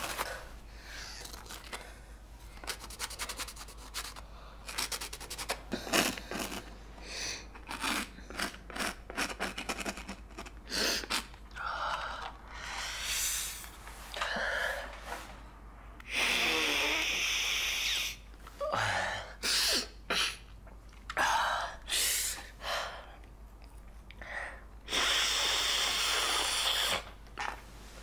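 A card chopping and scraping powder on a ceramic plate in quick clicks, then a person snorting lines through a rolled-up bill: one long, loud snort midway, a few short sniffs, and another long snort near the end.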